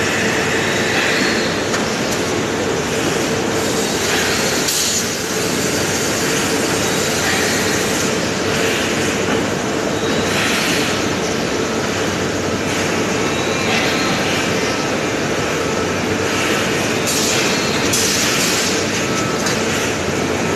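Steady, loud machinery din of an aluminium ingot casting and stacking line: conveyor and stacking-robot machinery running, with a constant hum underneath. Brief hissing bursts come about five seconds in and again near the end.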